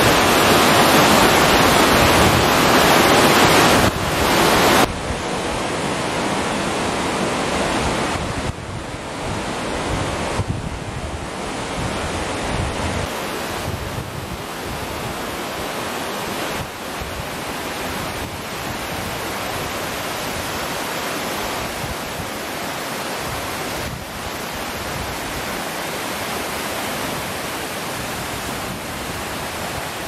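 Steady rush of a tall waterfall heard close to its base, with water pouring onto rock. It is loudest for the first five seconds, drops noticeably about five seconds in and again a few seconds later, then holds steady.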